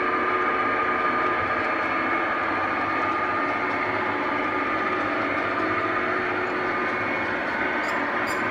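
Several Aristocraft G-scale diesel model locomotives (SD45s and GP40s) running along the track: a steady mechanical hum of motors, gearing and wheels on rail, with several steady tones. A few faint clicks come near the end.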